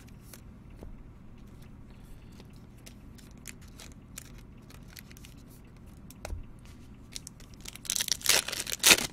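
Faint clicks of cards being handled, then near the end about a second of loud crinkling and tearing: a trading-card pack wrapper being torn open.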